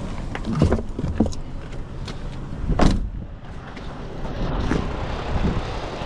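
Toyota 2GR-FKS 3.5-litre V6 engine idling, with a few sharp knocks and clunks of handling close by, the loudest nearly three seconds in.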